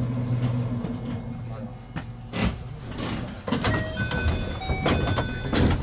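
221 series electric train coming to a stand at a station platform. Its running hum fades out about a second in. Then come hisses of air and sharp knocks, with a short run of electronic chime tones at different pitches near the end.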